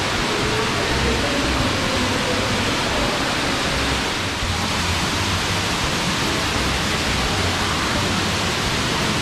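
Steady, loud rush of water inside a rock cave.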